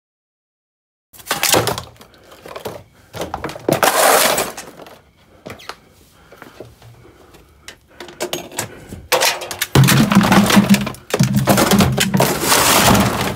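Silence for about a second, then loud, irregular clattering and knocks of hard objects being moved and struck on a concrete garage floor, in separate bursts that grow heavier near the end.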